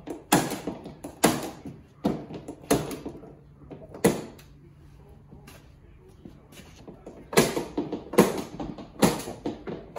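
A hand tool scraping along a wooden window sash in short, repeated strokes, about one a second. There is a pause of a few seconds in the middle.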